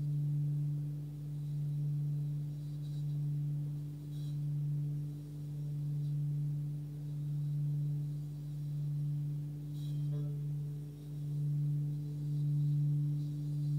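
Hand-forged 26 cm singing bowl sounding its low D fundamental at about 146 Hz, with a weaker overtone an octave above. The tone swells and fades in a slow beat roughly every second and a quarter. A faint click comes about ten seconds in.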